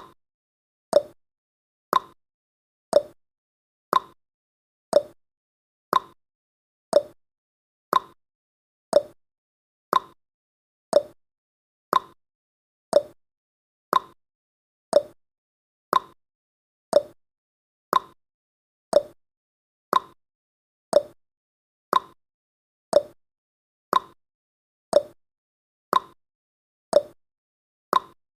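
Countdown timer's clock-tick sound effect, one sharp tick every second, each dying away quickly.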